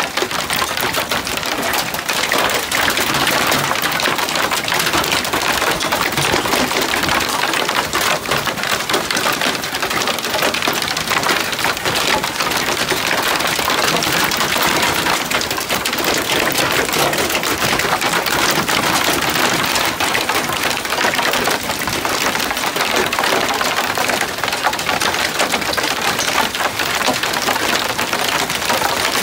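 Hailstorm: hailstones pelting a wooden deck and the ground in a dense, steady clatter of countless small hits.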